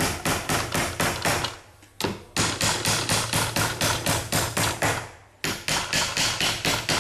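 A hammer driving panel pins into a pine board: quick, even taps, about five a second, in three runs with two short pauses between them.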